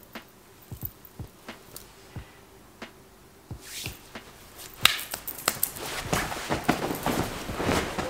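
Handling and movement noise close to the microphone: scattered light taps and clicks, then from about five seconds in a louder, busier run of rustling and knocking as the person moves about in front of it.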